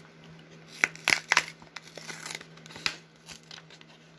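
Plastic wrapper of a 2021 Topps Series 2 baseball card pack being torn open and crinkled by hand: a handful of sharp crackles, loudest about a second in.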